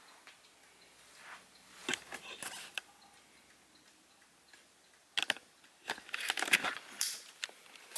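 Scattered clicks and clattery knocks of the plastic table fan being handled, in short bursts between quiet stretches, busiest near the end.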